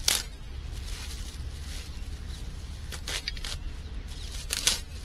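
Clear plastic packaging crinkling in three short bursts as it is pulled open and off a new part: once just at the start, then twice near the end. Under it runs a low steady rumble.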